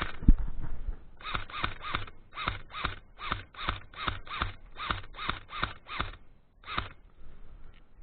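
Airsoft gun firing a quick string of single shots, about three a second, some fourteen in all, with a short pause before the last one.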